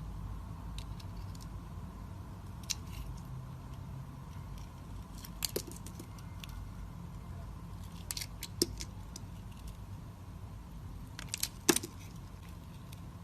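A knife cutting into dry soap, giving sharp crisp crunches and clicks in small clusters separated by pauses; the loudest cluster comes near the end. A low steady hum runs underneath.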